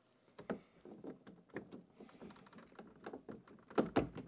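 A string of light clicks, taps and rustles from hands working behind a smart toilet to plug its power cord into the wall outlet, with a louder knock near the end.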